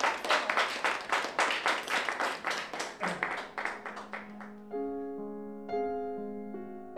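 A small group of people applauding with distinct hand claps, about three or four a second, which die away about four and a half seconds in. Piano music then begins.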